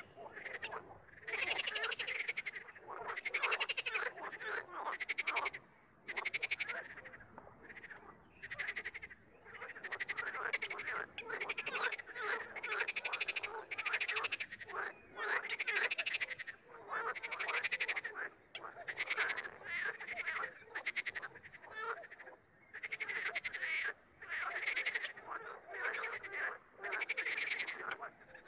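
Frogs croaking over and over, about two pulsing, rattly croaks a second, with a few short pauses between runs.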